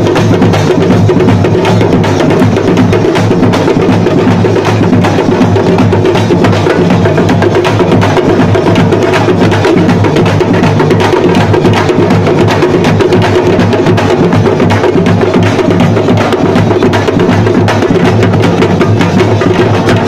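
Several parai (thappu) frame drums beaten with sticks in a fast, dense rhythm, loud and unbroken.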